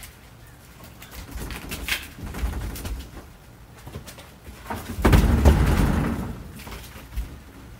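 Heavy firewood log rounds being handled inside a horse trailer: a few knocks of wood on the trailer, then a louder, low rumbling thump about five seconds in as a round is rolled or dropped onto the trailer floor.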